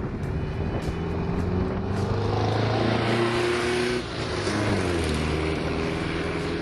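1970 VW Bus's air-cooled flat-four engine driving past with tyre noise, its note building as it approaches and dropping slightly in pitch as it pulls away.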